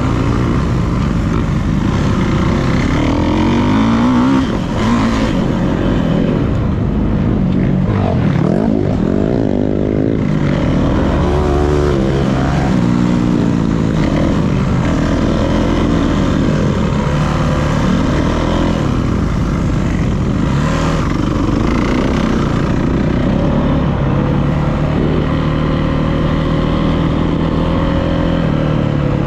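Dirt bike engine revving up and down while being ridden, its pitch rising and falling again and again with the throttle and gear changes.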